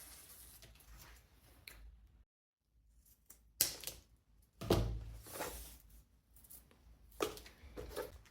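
A few short knocks with some scraping and rubbing between them, as objects are handled and set down on a work surface; the loudest come about three and a half, five and seven seconds in.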